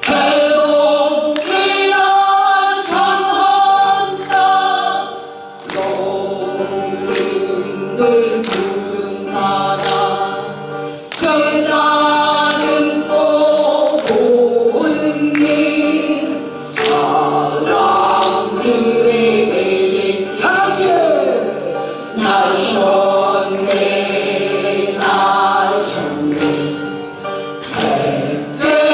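A chorus of voices singing a Korean folk-style song, with sharp beats at a steady pace underneath.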